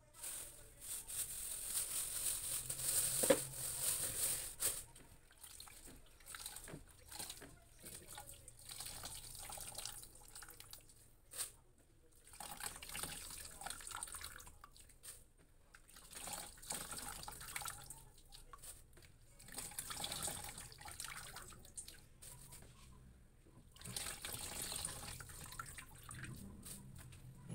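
Coconut milk being squeezed by hand out of wet grated coconut, splashing and trickling into a plastic basin. The squelch and pour swell and fade with each squeeze, every few seconds.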